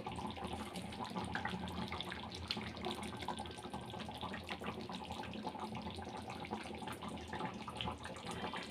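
Chicken curry bubbling in a pot as it boils, a steady crackle of small pops.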